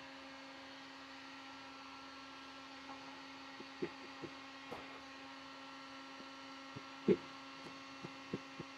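Faint steady electrical hum, with a few light clicks and knocks of handling scattered through it and one louder knock about seven seconds in.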